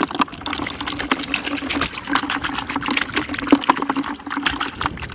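Shallow rice-paddy water splashing and sloshing in many small irregular splashes as a large, freshly caught eel is handled. A steady low hum runs underneath.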